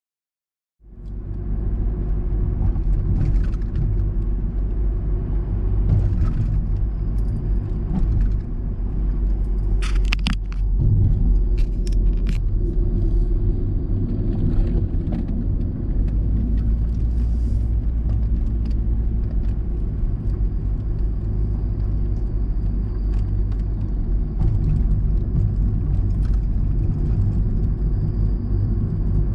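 Steady low rumble of a car being driven: road and engine noise, starting about a second in, with a few short clicks and knocks.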